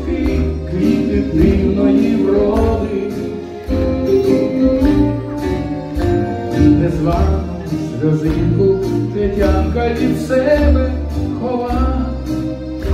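Live song performance: a singing voice over band accompaniment with a steady drum beat and a strong bass line.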